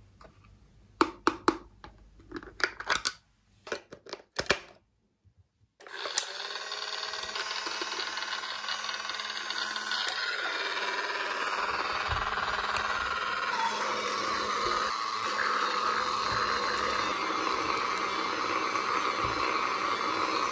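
Hard plastic clicking and tapping as a pink toy washing machine is turned over and handled. After a short break, a steady, dense continuous sound holds the same level and cuts off suddenly at the end.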